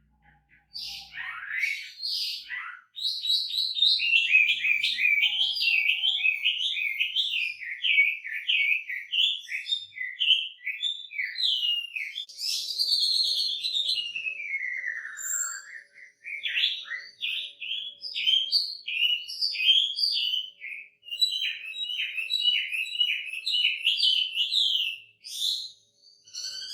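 Chinese hwamei singing a loud, varied song: rapid runs of repeated whistled notes, with a long falling whistle about halfway through and brief pauses between phrases.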